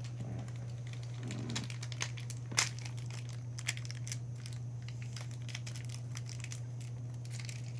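Plastic blind-bag packaging crinkling as it is handled, with scattered small crackles and one sharper crackle about two and a half seconds in.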